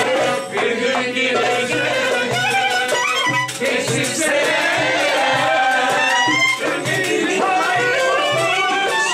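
Background music in a traditional folk style: a wavering melody over a steady, regular beat.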